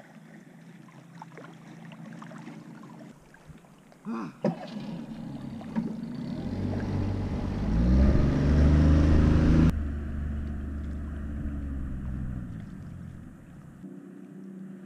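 Motorboat engine speeding up, its pitch rising for a few seconds, then cutting off suddenly and running on lower before fading away. A couple of sharp knocks come shortly before.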